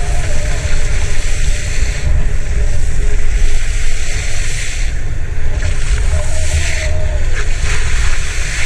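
Heavy wind buffeting on a camera microphone, with hissing surges of spray and splashing, as an inflatable banana boat is towed fast across choppy sea.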